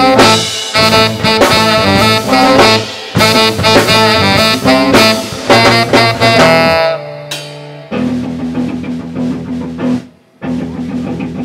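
Live band with a saxophone playing a loud solo line over the rhythm section. The sax ends on a held note about seven seconds in, leaving a quieter band groove.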